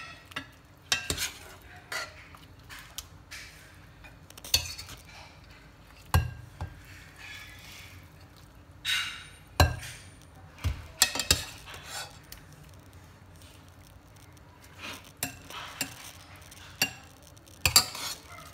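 Metal ladle scraping and clinking against a stainless steel pot as soup is ladled out into a glass bowl: irregular clinks and knocks, a few of them sharp and loud, with quiet stretches between.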